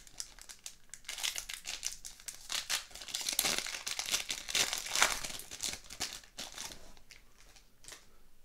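Foil hockey-card pack wrapper being torn open and crinkled by hand, a dense crackling that is loudest in the middle and dies down over the last couple of seconds.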